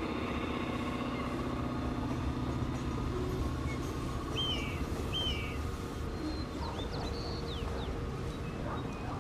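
D&RGW diesel locomotive engines running with a steady drone as the freight approaches, with birds chirping a few times midway.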